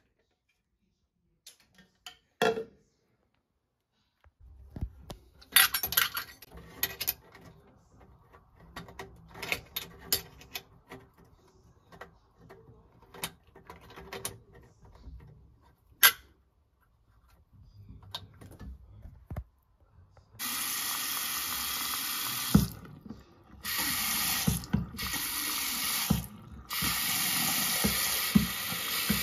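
Clicks and scrapes of a flexible supply hose being screwed back onto the angle valve under a basin, then a mixer tap running at full flow into the basin, with a few brief breaks. The strong, steady flow shows the water pressure restored once the blocked tap was cleared of debris.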